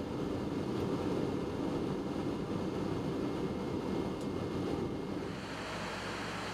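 Steady rushing noise inside a Boeing 777-200LR cockpit while an engine is being started. About five seconds in it changes to a steadier hum, with a faint low tone and a faint high whine.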